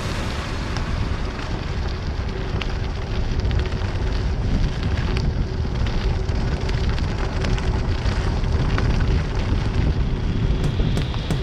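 Motorbike riding along with its engine running steadily, heard as a faint even hum under heavy wind rush on the microphone.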